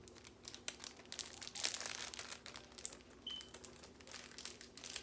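Crinkling and small crackles from hands working a camera wrist strap, threading it onto a compact digital camera, with a brief high tone about three seconds in.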